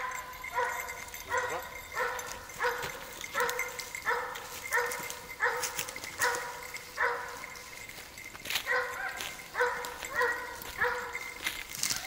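A dog barking over and over in an even rhythm, about one and a half barks a second, with a pause of about a second just past the middle before the barking resumes.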